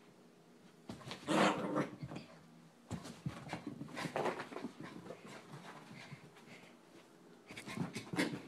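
Small puppy vocalising while she plays with her Kong toy, in three bursts; the loudest comes about a second in.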